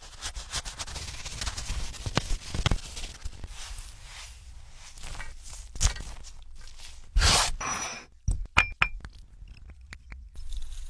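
Close-up food-prep sounds: a knife slicing through soft bread rolls in a metal baking pan, with scrapes and quick taps, then shredded cheese being handled, with a brief louder noise about seven seconds in.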